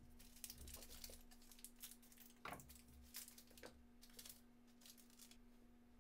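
Faint crinkling and rustling of a snack-bar wrapper being cut open with scissors and peeled off the bar, a string of light crackles that dies away after about four seconds.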